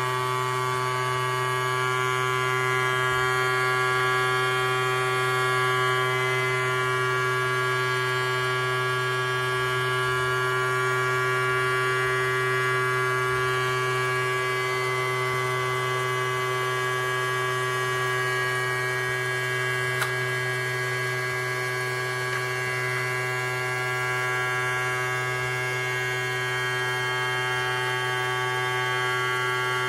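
Children's toy vacuum cleaner's small electric motor running with a steady hum, with a single faint click about two-thirds of the way through.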